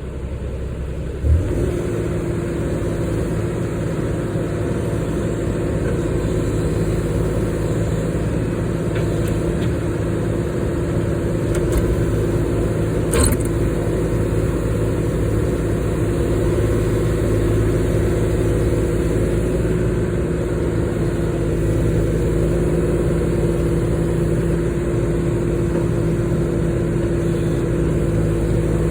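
Excavator's diesel engine running steadily, with a sharp knock about a second in and another about thirteen seconds in.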